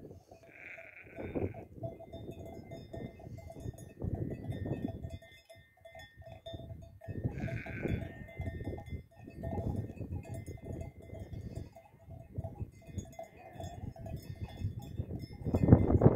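A flock of sheep grazing, with a couple of short bleats, one about half a second in and another about halfway through. Strong wind buffets the microphone in gusts, loudest near the end.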